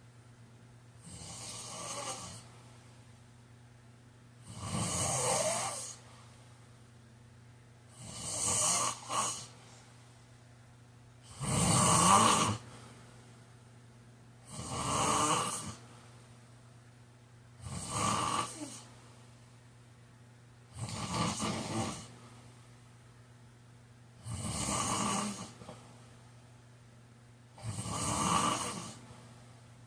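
A man snoring in a steady rhythm. There are nine snores, one every three to four seconds, with quiet breathing gaps between them; a couple of the snores break into two pulses.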